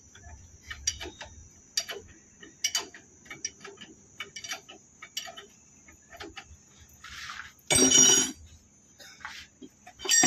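Steel spanners clicking and tapping irregularly on the 27 mm nut of a Swaraj tractor's power steering cylinder rod as it is undone, with louder metallic clanks about eight seconds in and again at the very end.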